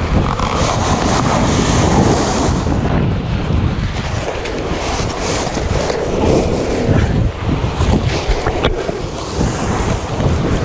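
Wind buffeting the camera's microphone: a loud, steady rush with a heavy low rumble.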